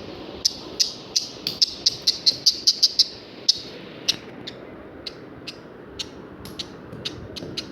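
A parrot making a quick series of short, sharp, high-pitched chirps, packed close together over the first three seconds and coming more sparsely after that.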